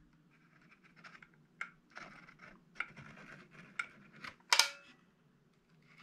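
A squeeze tube of fin backing cream being handled and pressed out onto a bass's tail fin: faint scattered clicks and scrapes, with one sharper click about four and a half seconds in.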